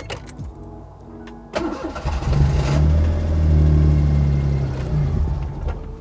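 Custom engine swapped into a Daihatsu Mira running rough at low revs, then picking up to around 2000 rpm for a few seconds before its revs sag and it stalls near the end. It starts but will not keep running, which the owner suspects is a vacuum leak.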